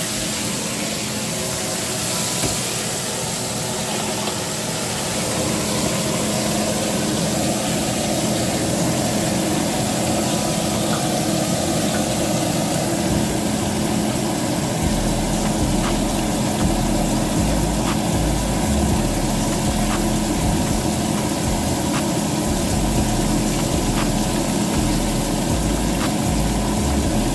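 Breaded chicken strips deep-frying in a skillet of hot oil: a steady sizzle over a low, steady hum, with faint ticks about every two seconds in the second half.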